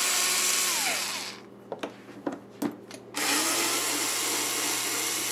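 Black & Decker cordless screwdriver with a Torx T-20 bit backing screws out of a dishwasher door panel. It runs in two spells: the first winds down about a second in, then come a few clicks, and the second starts about three seconds in.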